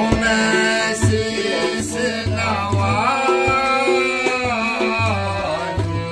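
A man singing a Ramlila song with held, gliding notes over a harmonium drone, with tabla strokes keeping time underneath.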